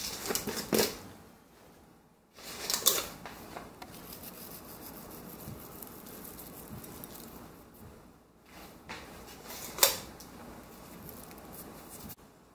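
Kitchen handling noises as fried garlic is sprinkled onto a bowl of porridge: a few sharp clicks and rustles near the start, again about three seconds in, and once more near the end, with a faint steady hiss between them.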